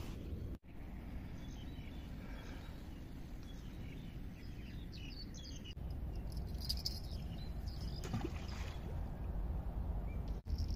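Outdoor riverbank ambience with faint birds and insects. A little past halfway, a fishing rod is cast: a short swish and hiss as the line runs off the reel.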